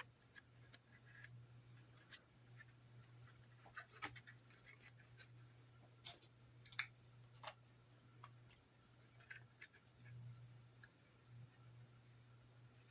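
Faint, irregular light clicks and scratches from small plastic model parts being handled and fitted by hand, over a steady low hum.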